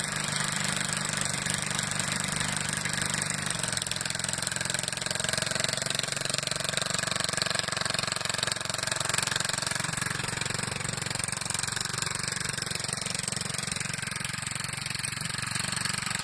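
David Bradley walk-behind tractor's engine running steadily and smoothly under way, not knocking or missing: a sign the engine is in good running order.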